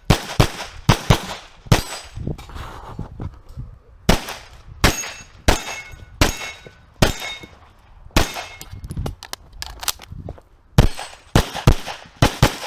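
Handgun shots fired in a practical-shooting stage: quick pairs and single shots at an uneven pace, with a pause of about two seconds after the first few.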